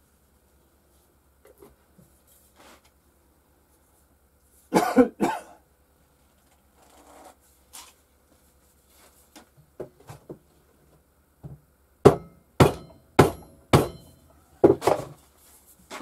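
Knocks and clatter of white plastic pipe fittings being handled and fitted together on a workbench: two knocks about five seconds in, then four sharp knocks about half a second apart around twelve seconds, and a double knock near the end, with small clicks in between.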